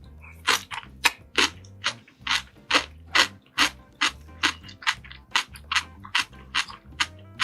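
Close-miked crunchy chewing, sharp crunches coming about two to three times a second in an even rhythm.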